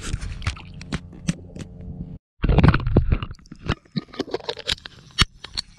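Low wind rumble on the microphone with scattered knocks and scrapes as an angler moves against a bass boat's gunwale and deck. After a brief break about two seconds in comes a loud scraping clatter, then a string of sharp clicks.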